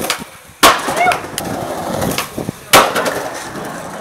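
Skateboard on concrete: two sharp board impacts about two seconds apart, with wheels rolling between them.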